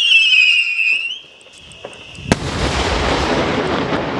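Daylight firework whistling and falling in pitch for about a second, then holding a steady tone. About two seconds in comes one sharp bang, followed by a long rumbling echo.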